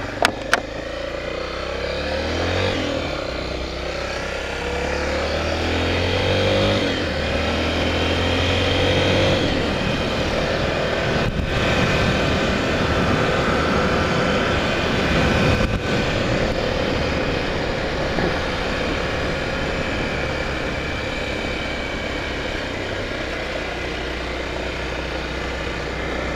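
Honda XR250 Tornado's single-cylinder four-stroke engine pulling away and accelerating through the gears, its pitch rising several times over the first ten seconds, then running steadily at cruising speed with wind noise.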